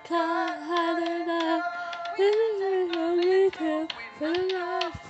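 A song: a solo voice singing lyrics over backing music, holding each sung note for up to about a second.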